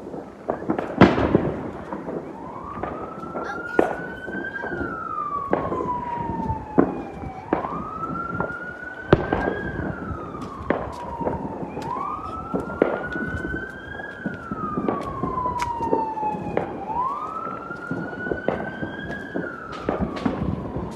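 Ambulance siren wailing: a tone that climbs quickly, then slides slowly down, repeating about every five seconds from about two seconds in. Skyrockets (cohetes) bang sharply and irregularly throughout, the loudest about a second in.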